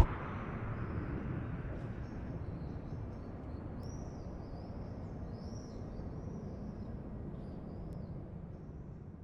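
Ambient soundscape outro of a track: a steady low rumbling drone with faint high chirps over it, dying away to silence near the end.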